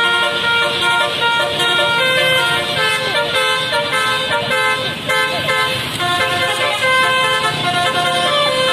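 Basuri telolet bus horn playing a melody: several horn tones sound together and change note in steps, with no break.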